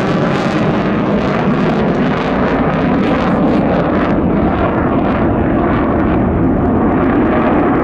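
Swiss F/A-18 Hornet's twin jet engines in afterburner, loud and steady as the fighter pulls up and climbs away. The high hiss dulls from about the middle on as it draws off.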